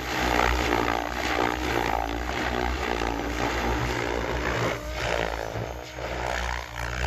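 Electric SAB Goblin RC helicopter's spinning rotor blades and motor running at a steady pitch while the blades chop through long grass. The loudness rises and falls as the rotor dips into the grass.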